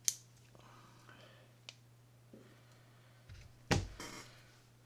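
Small sharp clicks of a Shimano Curado K baitcasting reel being handled, with a louder click near the end as its palm side plate is snapped closed.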